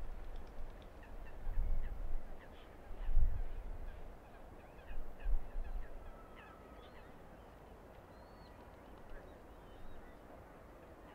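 Wind buffeting the microphone in low gusts, the strongest about a second and a half, three and five seconds in, over birds chirping with many short, quick calls that thin out in the second half.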